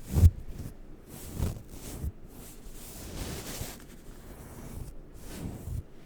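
Makeup brush bristles brushed over a microphone: several irregular soft swishing strokes with muffled low thumps, the loudest right at the start.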